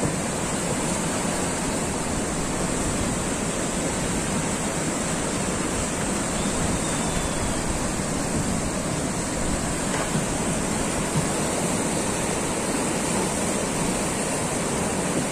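Whitewater rushing through the concrete channel of an artificial slalom canoe course, a steady, unbroken churning rush of water.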